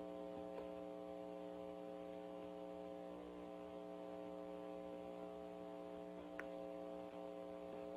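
Steady electrical mains hum on a recorded telephone line, with a faint click about six and a half seconds in.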